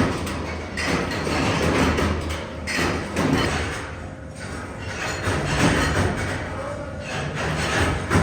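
Hex nut production machinery running, with a steady low hum under irregular thumps and clatter.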